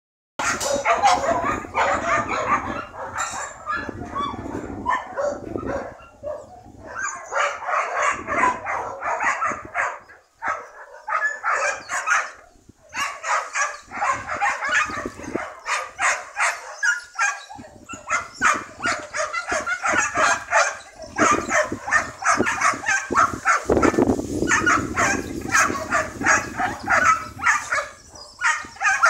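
Dogs barking rapidly over and over, with a couple of short pauses.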